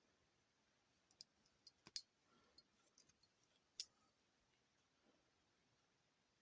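A scattering of small, sharp clicks and taps over near silence, the loudest about two seconds in and just before four seconds in.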